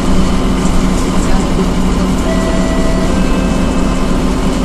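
Scania K230UB city bus on the move, heard from inside the passenger cabin: a steady engine drone under road and tyre noise. A brief faint whine shows up a little over two seconds in.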